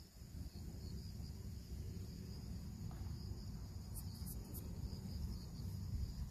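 Crickets chirring steadily in the background, an unbroken high-pitched trill, over a low rumble. A few faint clicks come about four seconds in.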